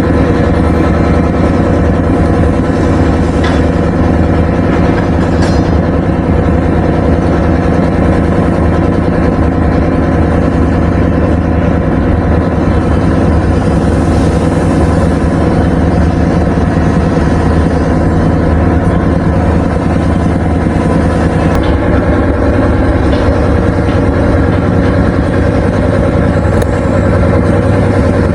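An engine running steadily close by, its pitch and level unchanging throughout.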